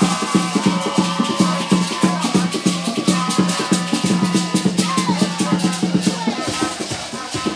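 Live band music with a fast, steady drum beat and a shaker playing throughout, an instrumental stretch of an upbeat gospel song.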